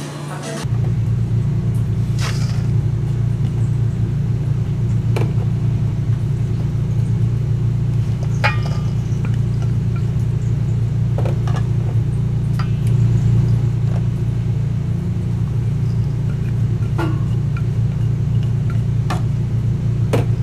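A steady low rumble of kitchen equipment running, with a few sharp clinks and clicks of utensils now and then. The rumble starts abruptly under a second in.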